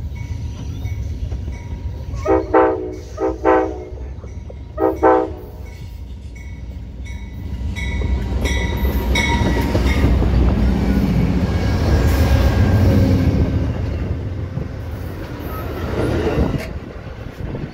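Amtrak passenger train's GE Genesis diesel locomotive sounding three horn blasts about two to five seconds in. The locomotive and its double-deck Superliner cars then rumble past close by, getting loudest partway through with wheels clattering on the rails.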